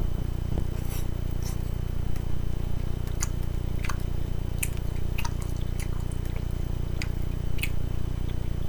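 Close-up chewing of a salad with wet mouth smacks and clicks at irregular intervals. A steady low hum runs underneath.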